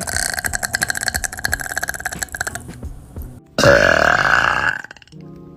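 A young woman burping: a long, rattling burp that fades out about two and a half seconds in, then, after a short gap, a shorter and louder burp that rises in pitch.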